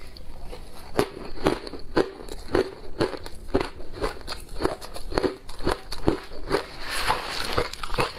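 Close-miked chewing of ice: teeth crunching through it in short bites about twice a second, with a longer stretch of dense crunching about seven seconds in.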